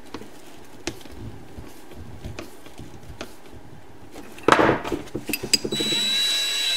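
Small clicks of a screwdriver tightening a steel hose clamp on a drill bit, then a clatter of metal tools being handled. Near the end a cordless drill starts and runs steadily with a high whine, spinning the home-made sandpaper hone.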